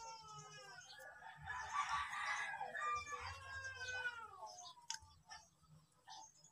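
Rooster crowing in the background: long pitched calls over the first four seconds, the last one drawn out and falling in pitch. A single click about five seconds in.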